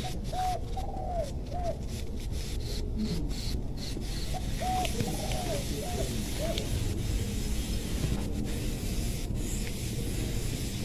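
A dove cooing in two phrases of about four arched notes each, the second phrase starting about four seconds after the first, over steady background noise.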